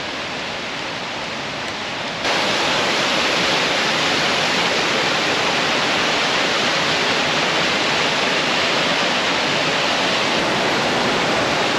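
Mountain waterfall: a steady rush of falling water, which grows louder about two seconds in and then holds steady.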